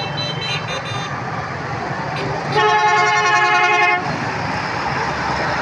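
A vehicle horn blows once, a steady blast of about a second and a half, over the steady noise of road traffic.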